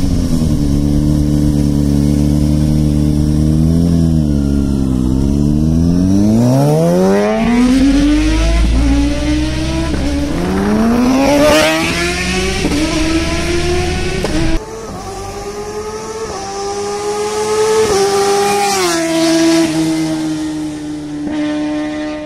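Kawasaki ZX-6R's inline-four through an M4 Tech 1 slip-on exhaust, accelerating hard through the gears. The engine note climbs in pitch, drops at each upshift and climbs again. About two-thirds through it turns suddenly quieter, then climbs once more before settling to a steady cruise.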